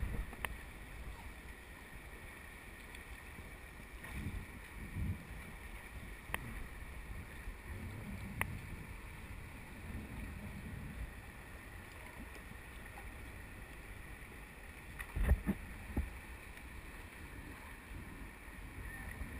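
Rushing river water around a raft, with uneven wind rumble on the microphone and a few sharp knocks, the loudest two close together about three-quarters of the way through.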